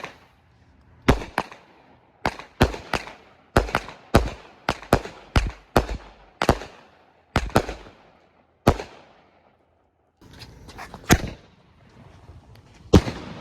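Consumer fireworks going off: an irregular run of about twenty sharp bangs, some coming in quick pairs, each trailing off briefly, with a short pause about nine seconds in before a few more reports.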